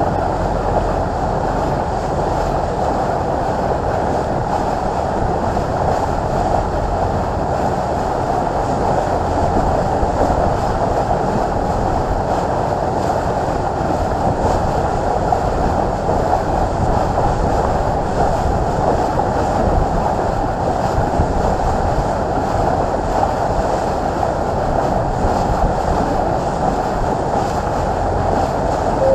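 Passenger motor boat cruising across open water: a steady engine drone with a low rumble and the rush of water along the hull.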